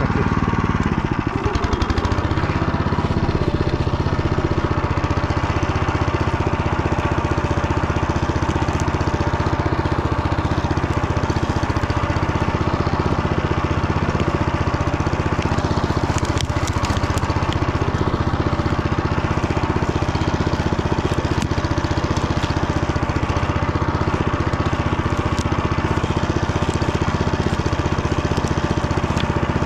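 Motor Sich walk-behind tractor's engine running steadily, its pitch dipping briefly about a second in, with a few clicks about halfway through.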